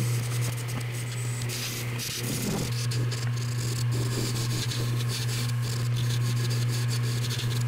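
Wood lathe motor running with a steady low hum while a hand-held turning tool cuts into a spinning bowling ball, making a continuous rough scraping hiss as the shell is shaved into stringy strands.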